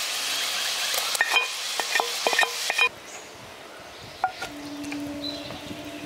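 Chhena sizzling in a pan as a spatula stirs it, with sharp clinks of the spatula against the pan. The sound cuts off abruptly about three seconds in, leaving quieter outdoor background with a faint steady hum.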